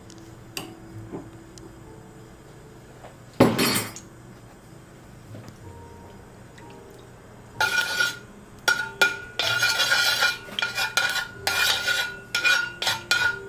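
Metal wok spatula scraping and stirring around a wok, spreading melting lard through the oil, in a run of quick strokes with a metallic ring from about seven and a half seconds in. Before that there is one short, loud clatter about three and a half seconds in.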